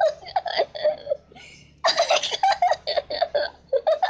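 A person giggling and laughing in short high-pitched bursts, in two runs with a brief lull just after a second in.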